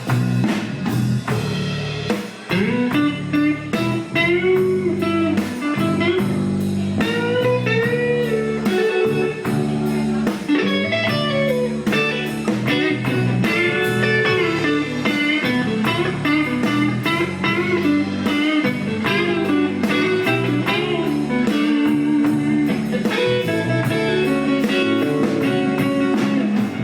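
Live band playing a slow, bluesy instrumental break: a guitar lead with bending notes over bass and drums.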